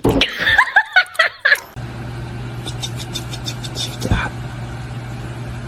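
High, gliding squeals or laughter for about a second and a half, then a steady low hum like a running vehicle. A quick run of clicks and a single thump about four seconds in sit over the hum.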